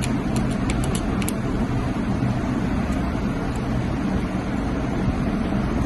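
Steady low background rumble with a faint hum, and a few light clicks in the first second or so.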